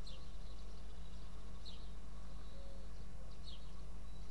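A bird calling: short, high chirps that fall in pitch, three of them about a second and three-quarters apart, over a steady low hum.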